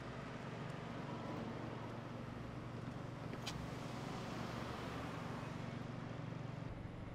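Light city street traffic: cars passing and running at an intersection, swelling a little in the middle, with one sharp click about three and a half seconds in.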